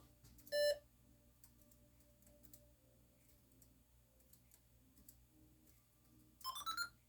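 A short electronic beep about half a second in, then faint ticks. Near the end comes a quick electronic chime of stepped tones rising in pitch.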